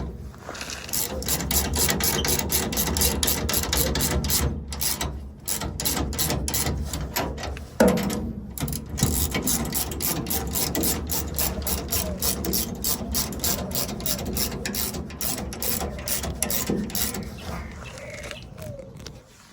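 Hand ratchet with a 19 mm socket clicking rapidly in long runs as the leaf spring clamp bolts are run on. A single loud metallic clank comes about eight seconds in.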